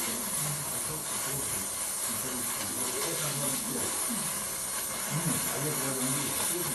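Steady hissing of welding on a 57 mm steel pipe.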